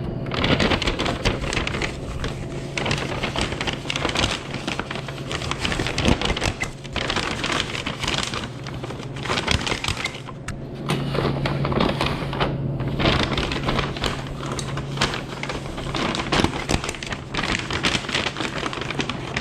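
Busy restaurant kitchen line: a dense, irregular clatter and crackle of containers, lids and utensils being handled, over a steady low hum of kitchen equipment.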